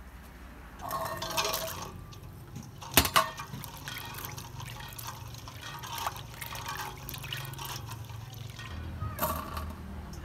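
Hands swishing red chillies and pea eggplants in water in a stainless steel bowl, the water sloshing and splashing unevenly. There is a sharp knock about three seconds in, the loudest sound.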